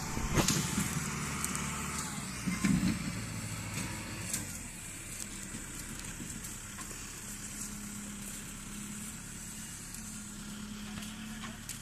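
Tractor diesel engine running steadily with a heavy sugarcane trailer hitched behind. Two brief louder bursts stand out, one under a second in and one near three seconds in, after which the engine settles to a steadier, quieter note.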